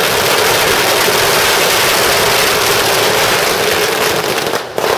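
A long string of firecrackers going off in a rapid, unbroken crackle, too fast to pick out single bangs. Near the end it thins into separate sharp bangs.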